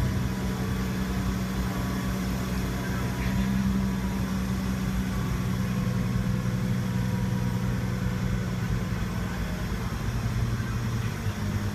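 Heavy diesel engine running steadily, a low even hum with no change in pitch.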